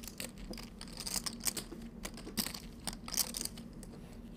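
Poker chips clicking as players shuffle and handle them at the table: a run of quick, irregular clicks.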